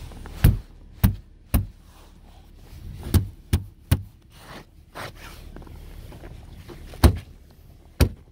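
Sharp knocks on the thick ice crust coating a car, struck to crack and break it: about eight hard blows in uneven groups, three near the start, three in quick succession midway, two near the end.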